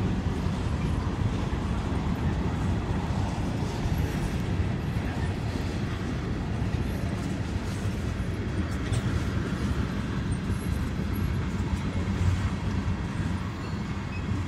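Freight cars (covered hoppers, then tank cars) rolling past: a steady low rumble of steel wheels on rail.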